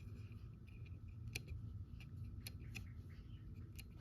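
About five sharp clicks at irregular intervals over a steady low hum, the switches on a Basys 3 FPGA board being flipped.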